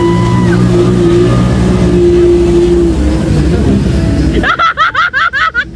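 Jet ski engine running at speed as the craft passes and pulls away. About four and a half seconds in, the engine sound cuts off abruptly and a quick run of warbling, rising-and-falling chirps follows, about five or six a second.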